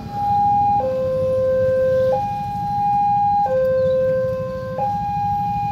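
Railway level-crossing warning alarm sounding its two-tone electronic signal, alternating between a higher and a lower tone about every second and a half, warning that a train is approaching the crossing.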